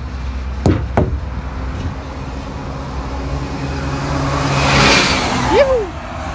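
A road vehicle passing close by on the highway: its noise swells to a peak about five seconds in, with a brief swooping pitch, then drops away quickly. Two sharp knocks come about a second in.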